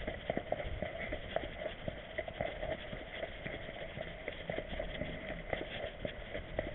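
Irregular clicks and knocks as a dog trots along the pavement with an action camera strapped to its back, the camera mount jostling with each stride, over a steady rubbing hiss of handling noise.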